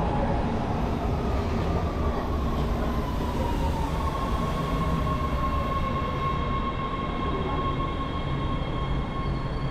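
Los Angeles Metro subway train pulling into an underground station and slowing to a stop, with a steady rumble of wheels on rail. A motor whine falls in pitch over the first few seconds as the train brakes, then holds at one tone.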